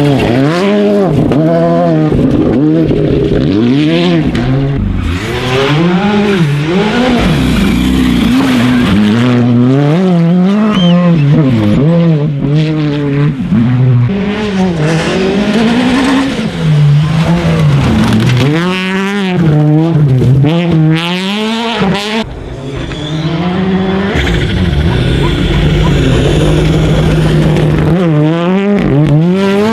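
Rally cars' engines revving hard and dropping away again and again through gear changes as the cars pass one after another on a gravel stage, with gravel spraying from the tyres and sharp cracks among the revs.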